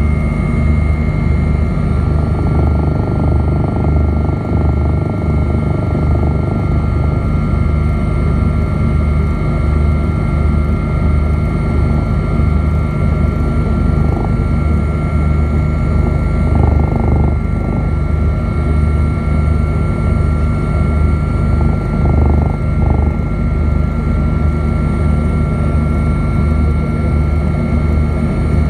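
Helicopter running steadily in cruise flight, heard from on board: a loud, fast low rotor beat under a steady high turbine whine.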